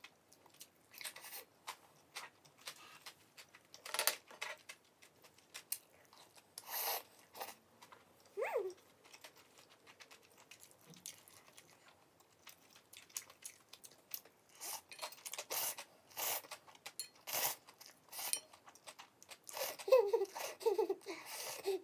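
A person eating rabokki close to the microphone: chewing and mouth sounds with many short, scattered clicks. A few brief high, gliding squeaks come about eight seconds in and again near the end.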